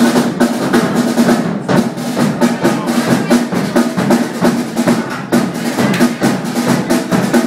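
Live band music driven by drums: rapid snare drum rolls and bass drum hits over sustained pitched instrument notes, playing loudly without a break.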